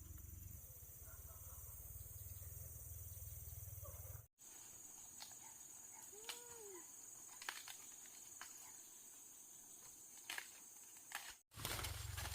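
Faint outdoor field ambience: a steady high insect hum with scattered light clicks and taps, and one short rising-and-falling call about six seconds in. The sound drops out abruptly twice.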